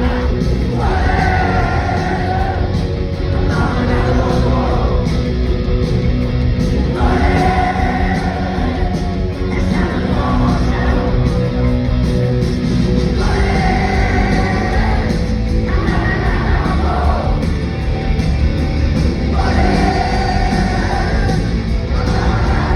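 Live punk rock band playing loud, with a shouted lead vocal that comes in phrases about every six seconds.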